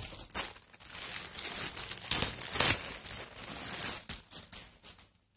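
Plastic packaging bag crinkling and rustling in irregular handfuls as a garment is pulled out of it, loudest around the middle and stopping about five seconds in.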